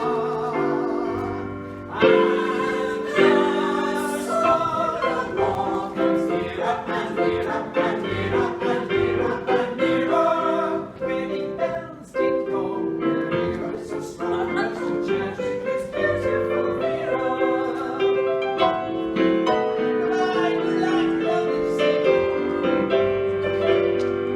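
A group of voices singing with piano accompaniment, the voices held with vibrato over steady chords.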